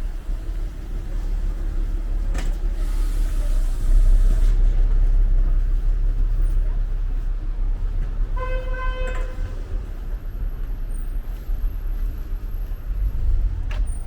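Street traffic rumbling past, with a vehicle horn sounding once for about a second around eight seconds in.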